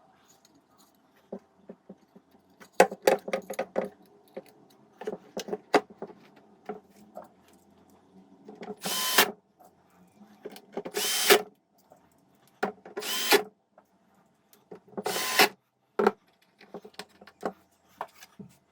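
Clicks and knocks of parts being handled, then four short bursts of a power tool, about two seconds apart, with more clicks after them.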